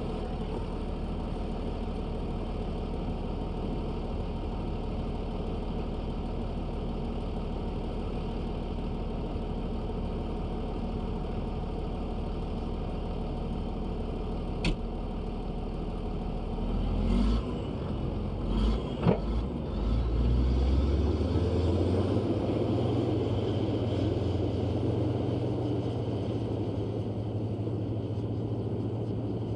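Komatsu D155A bulldozer's diesel engine running steadily at low speed, with a sharp click about halfway through and a few knocks a few seconds later. About two-thirds of the way in the engine speeds up and runs louder and higher-pitched to the end.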